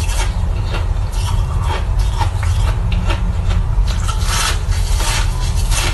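Crunching and chewing of yellow-flavoured shaved, crushed ice held to the mouth: irregular crackling bites, thickest about four seconds in, over a steady low rumble.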